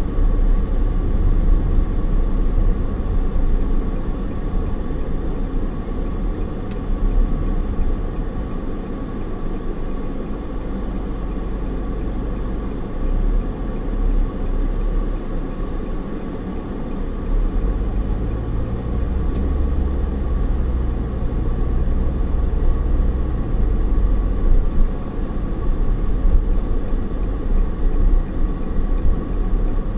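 Steady road and engine noise of a car driving, heard from inside the cabin: a low rumble that swells a little around the middle, with a faint steady hum.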